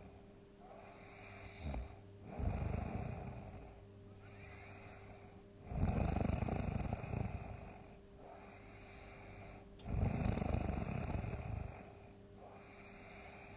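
A sleeping person snoring heavily: three loud snores roughly every four seconds, each lasting a second or two, with quieter breathing in between.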